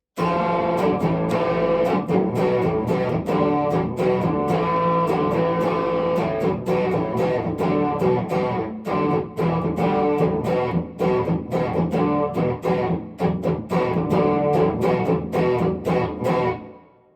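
Epiphone 1959 Les Paul Standard electric guitar being played: a run of picked notes and chords with sharp attacks, starting abruptly and dying away near the end as the last notes ring out.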